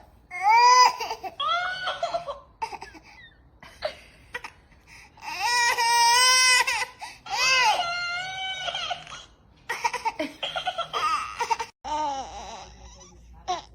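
A baby crying in a series of wailing bursts, the longest one about five seconds in, with shorter fussy cries after it.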